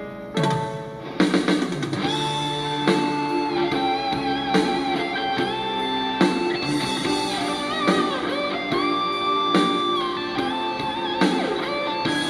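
Karaoke backing track playing the instrumental intro of a 90s Korean rock ballad: a long-held electric guitar lead with bent notes over guitar chords, with a drum hit about every second and a half.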